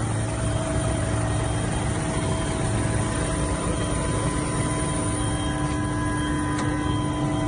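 Aircraft engine running steadily: a low drone with several steady whining tones above it.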